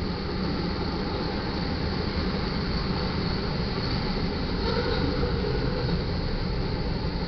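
Freight train cars rolling past at close range: a steady noise of steel wheels on rail and rattling cars, with no pauses.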